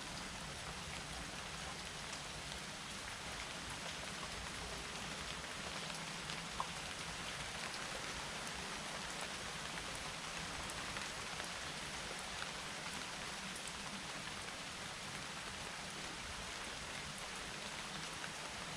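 Steady rain falling, an even hiss with scattered individual drops ticking, one a little sharper about six and a half seconds in.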